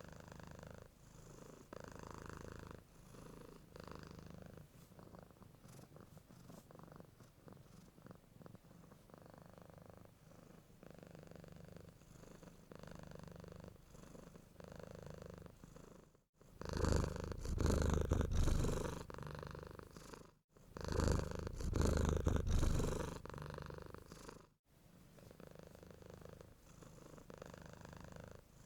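Domestic cat purring steadily, rising and falling about once a second with each breath. From about 16 s to 24 s the purr is much louder and closer, broken by brief sudden dropouts, before it returns to the softer level.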